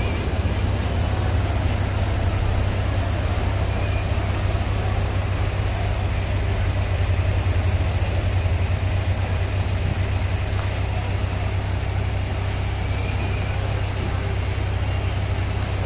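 Mitsubishi Fuso 8DC9 V8 diesel engine of a transit mixer truck running steadily, with a deep, even rumble.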